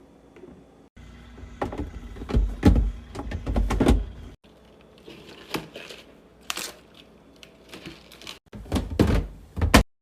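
Objects being handled and set down in a small room: a run of clicks, knocks and low thuds, broken up by several abrupt cuts between short clips.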